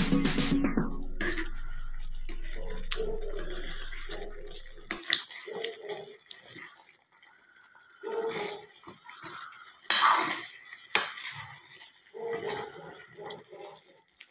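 Wooden spatula stirring chicken curry in a metal kadai: irregular scrapes and knocks against the pan over a faint bubbling of the gravy, the loudest about ten seconds in. Music fades out at the start.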